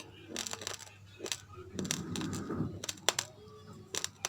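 Raw uncooked rice grains being chewed close to the microphone: irregular sharp, crackly crunches, with a softer stretch of grinding in the middle.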